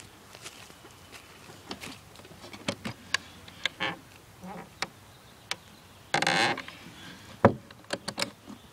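Footsteps on dry leaf litter and knocks against the wooden chicken coop: scattered light clicks and crunches, a short rasping noise about six seconds in, and a sharp knock about a second later, the loudest sound.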